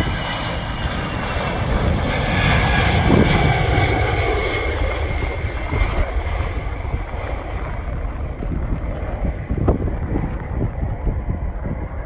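Jet aircraft passing, its engine whine falling slowly in pitch as the roar swells and then fades, with wind buffeting the microphone.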